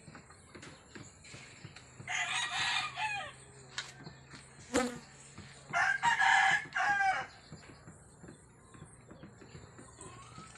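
A rooster crowing twice, each crow a little over a second long and ending with a falling note, over a faint steady low hum.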